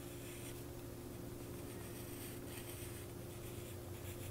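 Faint pencil strokes scratching lightly on paper while sketching, over a steady low hum.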